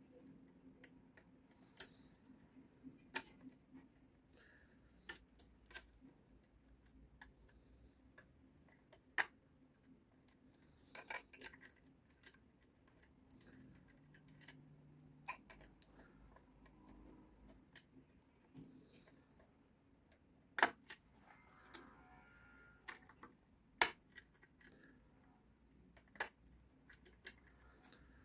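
Faint, scattered metallic clicks and light scraping from a lock pick and wire tension tool working the pins of a nine-pin cross-keyway garage lock, with two louder clicks in the last third.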